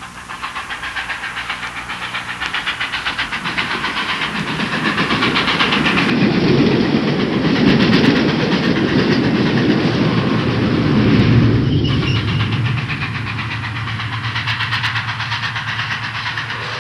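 A train running on rails, with a fast, steady rhythmic beat. A low rumble swells louder through the middle and then eases off.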